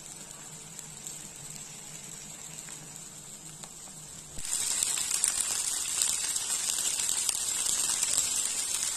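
Chicken kosha cooking in a pan, quiet at first over a steady low hum; about four seconds in a loud hissing sizzle starts suddenly and keeps going as warm water goes into the hot, oily masala.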